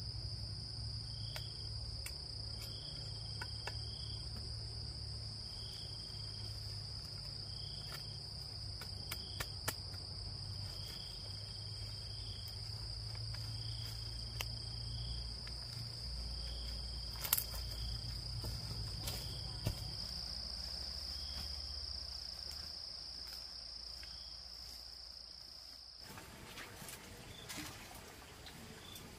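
Insects calling: a steady high-pitched drone with a short chirp repeating about once a second, over a low rumble. The drone and rumble cut off abruptly about 26 seconds in, leaving faint scattered clicks.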